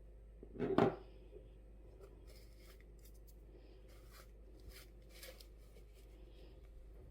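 Kitchen handling sounds: one brief, louder scrape or rustle just under a second in, followed by scattered light clicks and short rustles.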